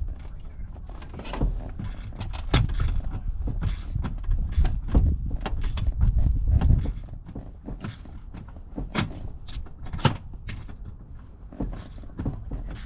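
Irregular knocks, clicks and clanks of hardware being handled, the sort of sound made while working on truck seats. A heavy low rumble runs under them from about two to seven seconds in.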